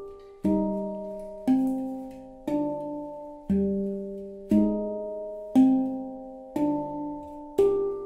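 Handpan (hang drum) struck with the hands about once a second in a steady repeating melodic pattern, each note ringing with its overtones and dying away before the next stroke.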